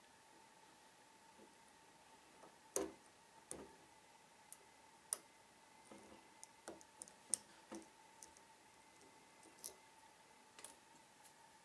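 Lock pick and tension tool working the pins inside a Trioving 5632 padlock: faint, irregular small metallic clicks and ticks, starting a couple of seconds in, over a faint steady hum.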